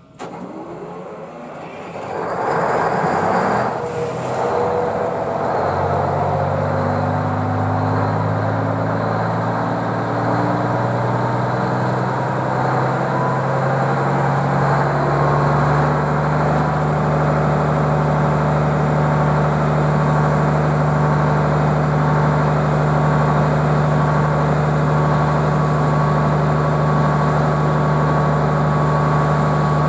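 Diesel engine of ex-Strukton shunting locomotive 302282 starting up with an old, classic start-up sound. It turns over noisily for a few seconds and catches about five seconds in. It picks up speed, then settles into a steady, deep idle from about fourteen seconds on.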